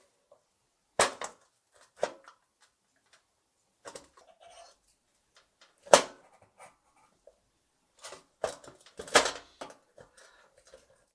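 Sharp knocks and clatters of hard objects being handled, single strikes about a second apart at first, then a quick cluster of them near the end.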